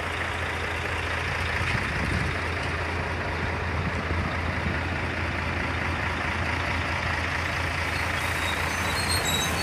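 Heavy diesel machinery running steadily: an unbroken low engine rumble under a wash of noise.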